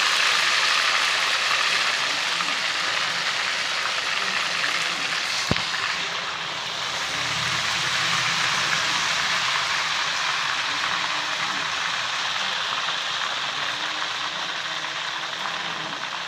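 Ghevar batter frying in hot ghee in a steel kadhai: a steady sizzling hiss, with one short click about five and a half seconds in.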